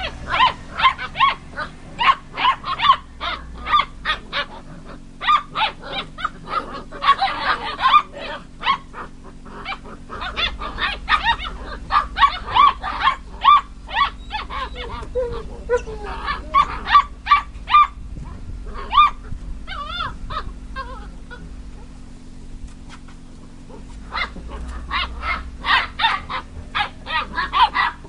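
Basset hound puppies barking and yapping in play: runs of short barks, several a second, with a lull about three quarters of the way through.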